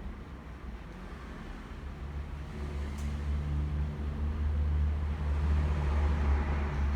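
Low vehicle engine rumble, growing louder from about two seconds in, with a single sharp click about three seconds in.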